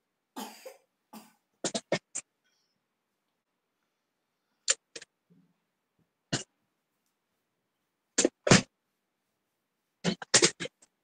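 Sharp, short knocks or clicks, about a dozen in irregular clusters with quiet gaps between them, and a brief rustle just after the start.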